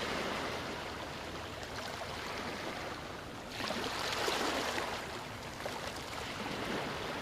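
Ocean waves washing onto a beach: a steady hiss of surf, with a fresh wave breaking about three and a half seconds in and then running back.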